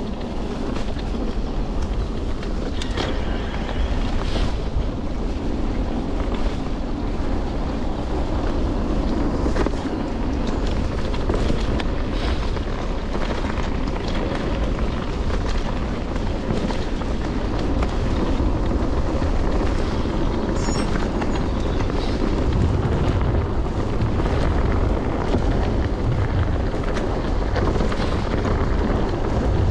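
Wind rushing over the camera microphone as a mountain bike rolls fast down a dirt trail, with the tyres rumbling on the ground and frequent clicks and knocks as the bike rattles over bumps.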